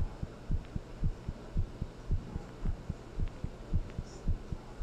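A person's heartbeat recorded close up: low thuds about two a second, over a steady low hum.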